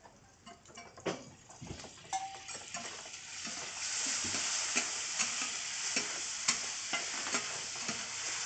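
Pieces of offal (horumon) frying on a flat iron griddle, worked with two metal spatulas that scrape and tap against the iron. The sizzling builds about three seconds in and stays loud, with the clicks of the spatulas through it.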